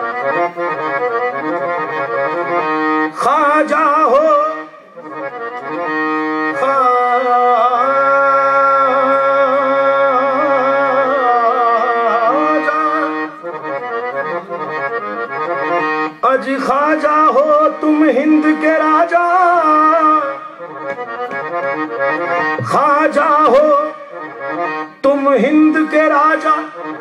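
Harmonium playing held chords, with a qawwali singer's voice singing ornamented, wavering phrases over it in several stretches; for several seconds in the middle the harmonium sounds alone.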